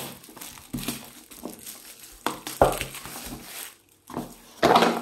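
Clear plastic shrink wrap crinkling and crackling in irregular bursts as it is peeled off a boxed game set and crumpled by hand. The bursts are loudest about halfway through and near the end.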